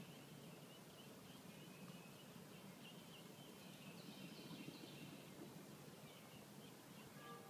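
Faint, high peeping of ducklings, short chirps repeated on and off, over a quiet background hiss.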